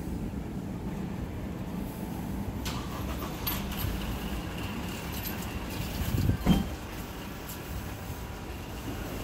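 Street ambience with a steady low rumble of road traffic and a few light clicks. A louder thump comes about six and a half seconds in.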